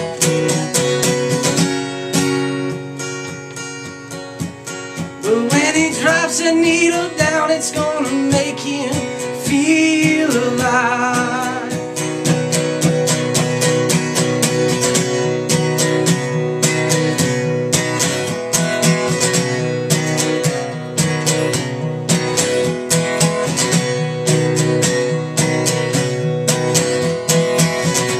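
Acoustic guitar strummed in a steady rhythm, with a man singing a line from about five seconds in for several seconds; the playing is softer just before the singing comes in.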